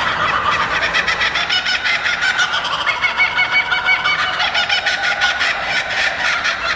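Laughing kookaburra call: a long, steady run of rapid repeated hoarse notes that sounds like loud laughter.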